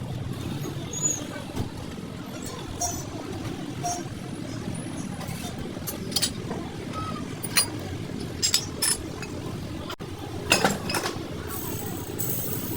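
Scattered sharp metallic clinks and taps of tools and parts being handled, over a steady low background rumble.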